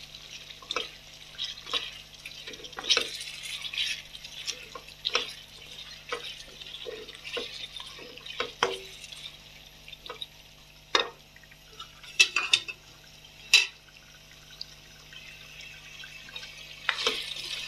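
Black spoon stirring and scraping chicken pieces frying in oil in a dark wok-style pan. Irregular clicks and knocks of the spoon against the pan sound over a faint sizzle, the sharpest knocks about two-thirds of the way through.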